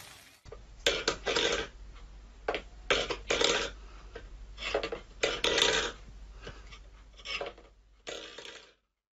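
Steel pet food bowl scraped and knocked across a wooden floor by a cat's paw, in about a dozen short uneven bursts.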